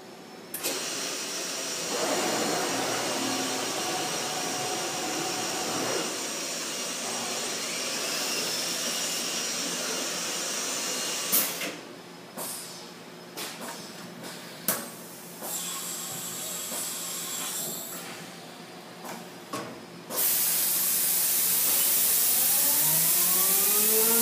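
Industrial plastics-processing machinery running: a steady hiss of air over a machine hum, a run of sharp clanks and knocks in the middle, then a louder rush of air and a motor whine rising in pitch near the end.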